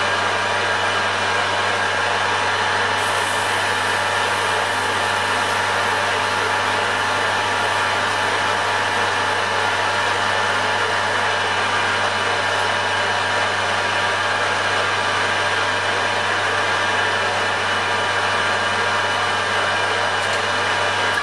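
Metal lathe running steadily under power while turning a stub axle, the motor and gears humming and whining evenly, with the tool taking a cut along the part. A brighter cutting hiss joins about three seconds in.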